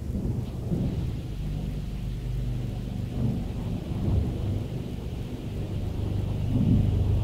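Kleindienst Euro Combi car wash's rotating blue-and-green brush scrubbing across the front of the car, heard from inside the cabin as a steady low rumble. There is also a hiss of water spray, which grows louder near the end.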